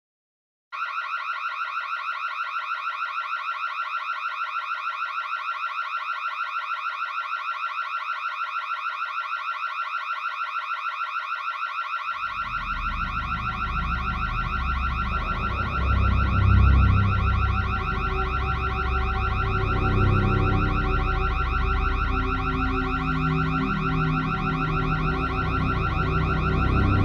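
Home security alarm going off: a high electronic tone pulsing rapidly and evenly, starting abruptly about a second in. From about twelve seconds in a low rumbling drone joins underneath.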